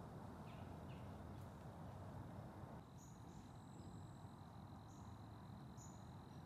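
Near silence: faint rural morning ambience with a low hiss. From about three seconds in there are a few short, faint high chirps and a faint steady high tone.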